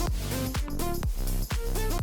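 Background electronic dance music with a steady beat: a drum strike about every half second, a deep bass and a pitched synth melody.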